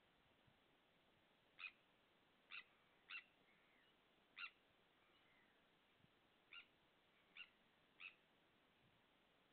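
A tern calling: seven short, sharp calls at uneven intervals, each well under half a second, over a faint steady hiss.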